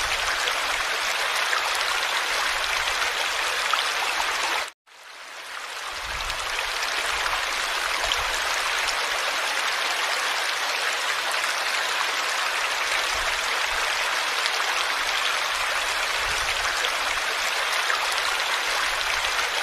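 Steady rushing of a flowing stream. Just under five seconds in it cuts out suddenly for a moment, then fades back up over a second or two.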